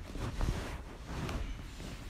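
Outdoor background noise: a steady low rumble and hiss with no clear single event.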